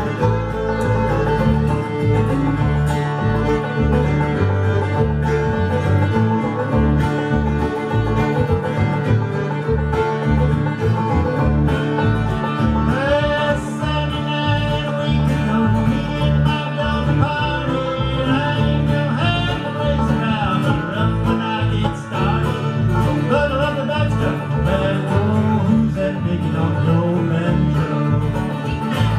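Old-time string band playing a fast instrumental tune: banjo and guitar with a fiddle carrying the melody, quick and driving.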